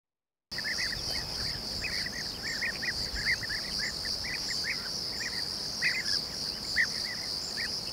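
A steady, high-pitched insect chirring with many short bird chirps over it, starting suddenly about half a second in.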